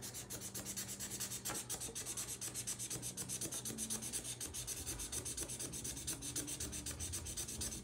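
Sharpie permanent marker scribbling on paper, rubbing back and forth in quick, even strokes, several a second, as a shape is filled in solid black.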